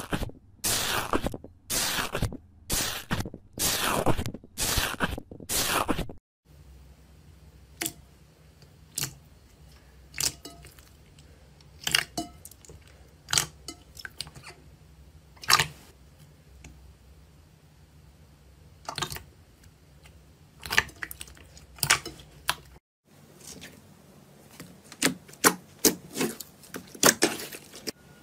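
Slime being squeezed and pressed by hand. It starts with a run of loud, regular squishes, about one and a half a second. After that come sparse small pops and clicks over a faint hum, and near the end quicker pops.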